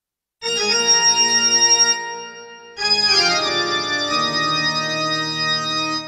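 Yamaha PSR-E463 keyboard playing organ chords with its pipe organ and church organ voices layered. One chord comes in about half a second in and dies away after about two seconds; a second comes in just before three seconds and is held, slowly softening.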